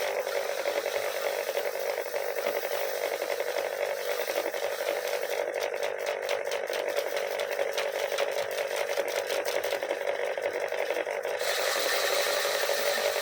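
Paddy threshing machine running steadily, a constant whirring hum with a dense rattle as rice is threshed from the stalks.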